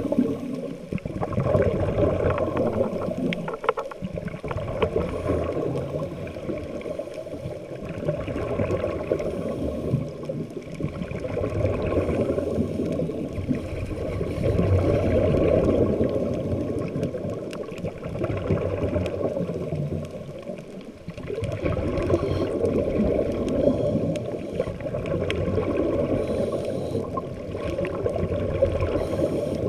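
Muffled underwater sound of a scuba diver breathing through a regulator, the exhaled bubbles gurgling. It swells and fades every several seconds with each breath.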